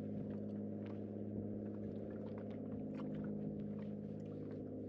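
A steady low hum with even overtones, unchanging throughout, with faint light ticks over it.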